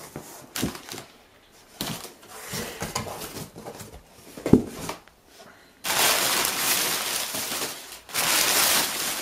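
Cardboard shipping-box flaps and packaging being handled: scattered knocks and rustles at first, then loud, continuous rustling of packaging from about six seconds in, broken by a short pause near the end.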